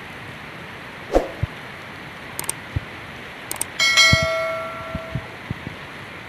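Heavy rain falling steadily, with scattered drips and thumps. About four seconds in, something metal is struck once with a clang that rings on for about a second and a half.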